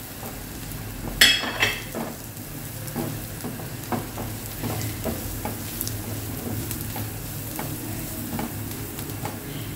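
Silicone spatula stirring and scraping spices through onions frying in oil in a nonstick frying pan, with a light sizzle and scattered soft taps against the pan; one sharper clink about a second in.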